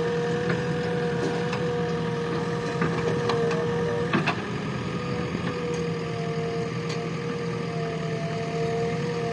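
JCB backhoe loader's diesel engine running steadily with a constant whine over it, and a few short knocks about four seconds in.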